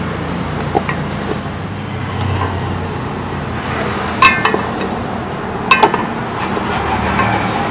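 A metal ladle stirring mutton in ghee in a large aluminium pot, clinking sharply against the pot rim twice, about four and six seconds in, over steady background noise.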